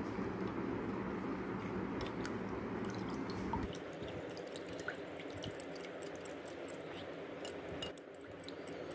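Metal spoon stirring a cornflour-and-water slurry in a glass bowl: steady wet swishing with many light clicks of the spoon against the glass.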